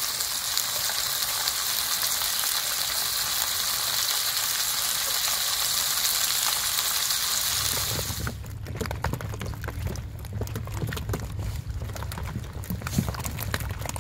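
Scored gizzard shad sizzling and hissing steadily as they grill on coarse salt. About eight seconds in the sizzle cuts off, giving way to a low steady hum with scattered ticks and taps.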